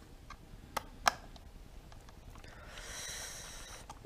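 Small screwdriver ticking and clicking against the plastic body of a WPL C24 RC pickup as parts are fitted, with a sharp click about a second in. After that comes a long breathy exhale lasting over a second.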